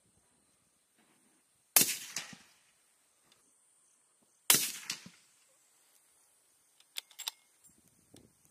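Two gunshots about three seconds apart, each with an echoing tail that dies away over about half a second. A few lighter clicks follow near the end.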